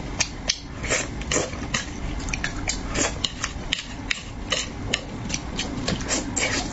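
Close-miked eating of spicy braised fish: wet mouth clicks, lip smacks and sucking as the fish is chewed and picked off the bones, coming irregularly a few times a second.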